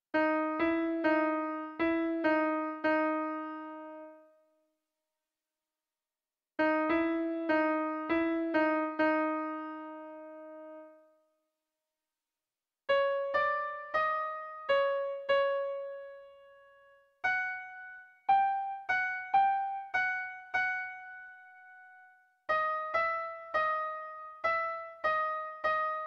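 Background music on a piano-like keyboard: five short phrases, each a quick run of notes ending on a held note, separated by brief complete silences.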